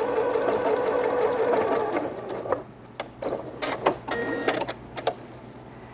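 Janome computerized sewing machine stitching an applique stitch, running steadily and stopping about two seconds in. A few sharp clicks and light handling noises follow.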